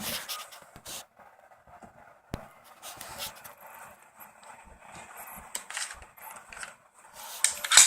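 Close handling noise: rubbing and scraping, with a single sharp click about two and a half seconds in and a louder rustle near the end.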